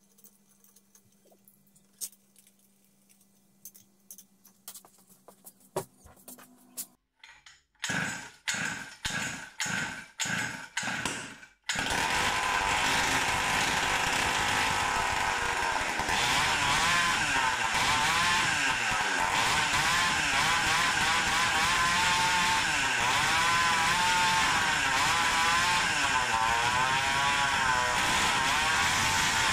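Samurai 40cc two-stroke pit-bike engine being started: about eight seconds in, half a dozen quick bursts that each die away, then it catches near twelve seconds and runs loudly and steadily, its pitch wavering up and down. The flywheel has just been turned to advance the ignition timing.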